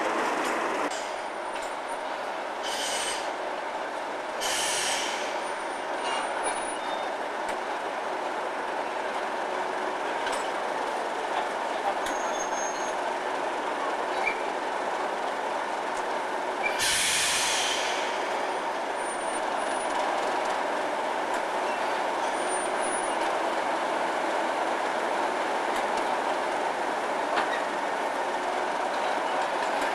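Class 37 diesel locomotive's English Electric V12 engine running steadily as it stands at the head of the coaches to couple on. Short bursts of air hiss come about three and four and a half seconds in, and again about halfway through.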